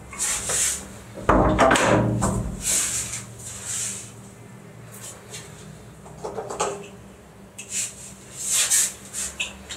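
Soft background music with irregular rustling and handling noises, like cloth being moved and wood knocked. A louder, deeper sound comes about a second and a half in.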